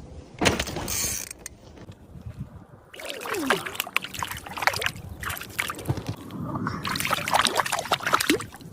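Water splashing and sloshing in bursts: one splash about half a second in, then a busy run of sharp splashes from about three seconds in.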